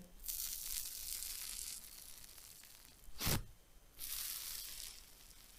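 Hands pressing into a giant fluffy shaving-foam slime with a thin dried crust on top: quiet crackling crunch as the crust and trapped air bubbles give way, in two spells. A short louder thump comes a little after three seconds in.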